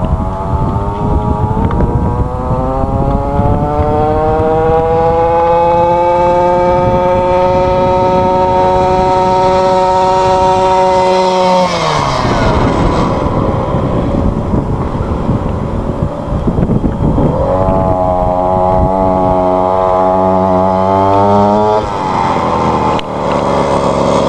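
Blaze 49cc two-stroke scooter engine running at high revs with wind noise on the microphone. Its pitch climbs steadily, holds high, then falls sharply about halfway. Later it climbs and holds high again.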